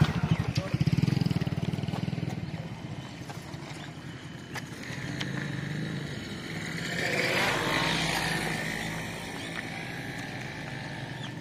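A motor vehicle's engine running close by, loudest for the first two seconds and then easing. A broader swell of traffic noise rises and fades about seven to eight seconds in.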